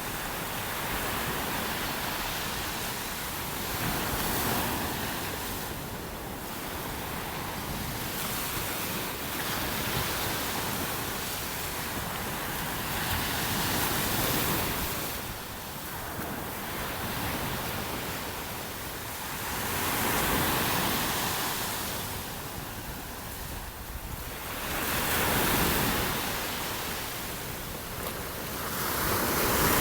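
Surf breaking on a sandy beach: a steady wash of waves that swells and fades every several seconds as each wave comes in, with wind rumbling on the microphone.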